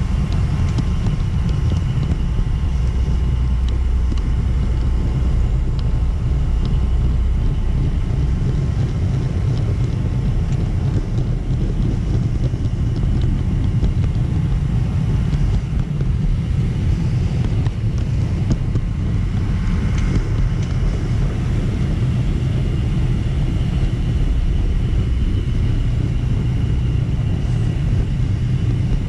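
Model train running along its track, heard from a camera riding on the train: a steady rumble of wheels and motor with a faint, steady high whine over it.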